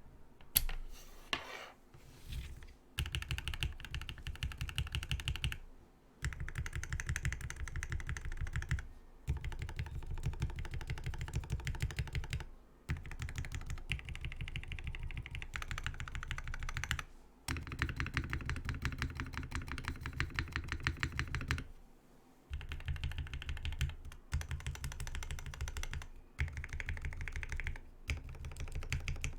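Fast typing on an HH60 mechanical keyboard with lubed and filmed Original Aspiration switches, lubed stabilizers and GMK keycaps, with no plate or case foam. The keystrokes come in quick runs of a few seconds, each broken by a short pause.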